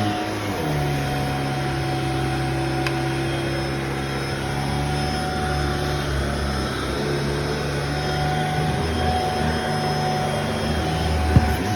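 Vacuum cleaner running steadily. Its motor note drops slightly just after the start and rises again a little before the end. There are a couple of sharp knocks near the end.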